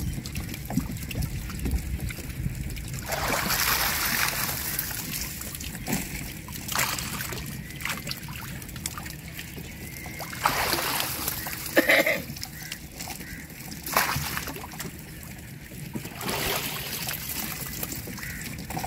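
Water splashing and sloshing in several separate bursts as a man wades chest-deep inside a bamboo-slat fish-trap pen. Near the end a net is hauled out of the water, with water pouring off it.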